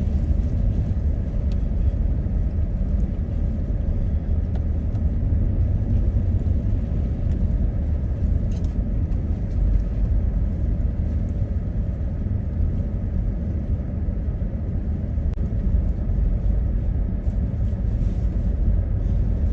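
Steady low rumble of a car driving, heard from inside the cabin: road, engine and wind noise, with a few faint clicks.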